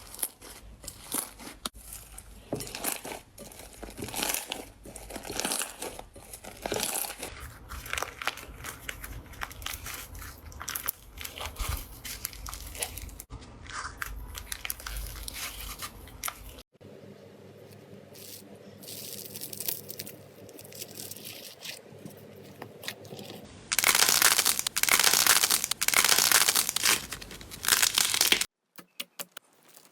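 Slime being squeezed and pressed by hand, giving a dense run of irregular crinkling, crunching and crackling sounds. The sound changes abruptly a few times, with a quieter stretch in the middle and a louder crackling stretch near the end.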